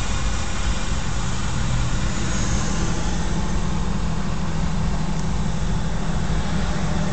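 Steady road noise inside a moving car's cabin: a low engine and tyre rumble with an even hiss above it.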